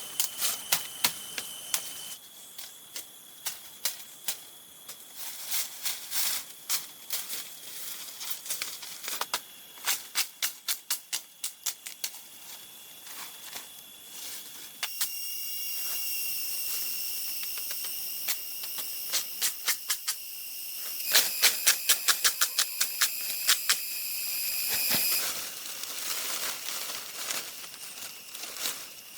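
Runs of quick, sharp knocks, several a second, the loudest near the end. A steady high-pitched drone runs under them and fills out into a richer, shrill tone through the middle.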